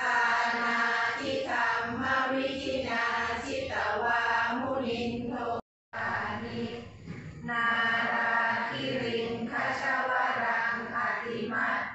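A group of voices chanting Buddhist prayers together in unison, with held, sung tones. The sound cuts out completely for a split second about halfway through, then the chanting resumes.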